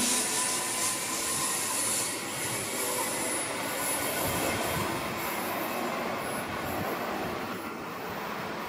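Queensland Rail New Generation Rollingstock electric train passing and drawing away: a steady rumble of wheels on rail with thin, high wheel squeal, fading gradually as the train recedes.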